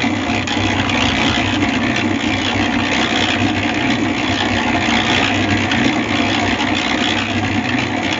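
Washing machine running loudly and steadily at speed, a constant mechanical din.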